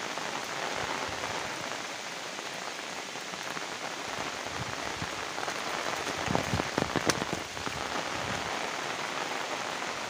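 Steady rain falling on dense foliage, with a few short sharp taps about six to seven seconds in.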